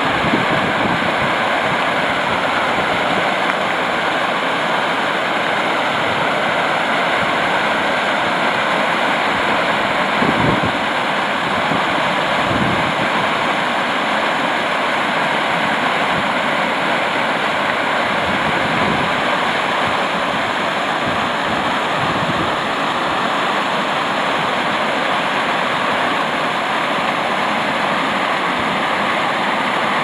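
Water rushing steadily at a canal lock, a constant loud hiss of falling water, with a short low bump about ten seconds in.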